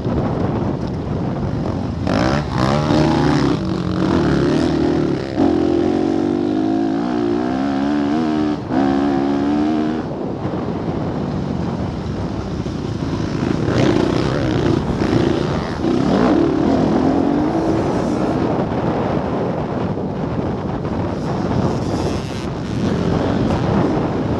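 Motocross bike engine heard from on board, revving up and falling back as the rider works the throttle and shifts through the gears, with wind and ground noise underneath.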